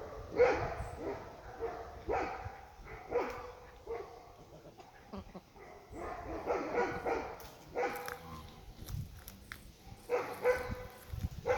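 Puppies yipping and barking in short, repeated calls, with a quieter stretch in the middle.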